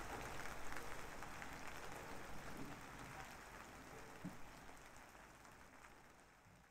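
Steady rain falling, a fine pattering hiss, fading out over the last couple of seconds.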